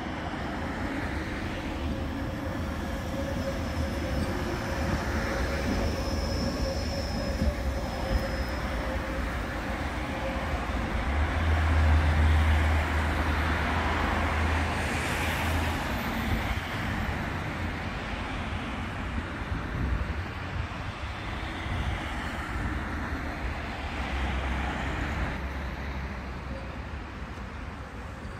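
Tatra tram rolling past on its rails, running with a steady rumble and a thin high wheel squeal in the first few seconds. It is loudest about twelve seconds in, then fades as it draws away.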